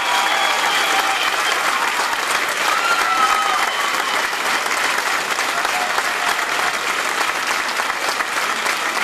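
A roomful of people applauding steadily, with a few voices calling out over the clapping near the start and about three seconds in.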